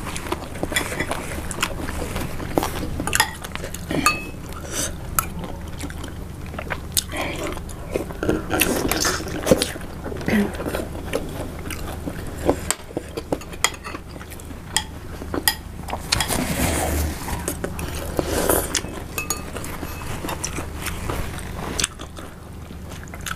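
Close-miked eating: chewing and biting into large beef meatballs (bakso), with scattered clinks of metal spoons against ceramic bowls and sips of broth from a spoon.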